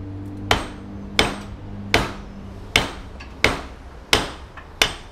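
Seven hammer blows, about one every 0.7 s, each with a short ring, knocking at a stuck machined venturi restrictor to drive it out of an aftermarket intake pipe.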